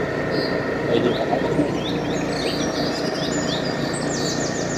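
Several birds chirping in short quick notes, some rising and some falling, with a fast run of falling notes near the end, over a steady background noise.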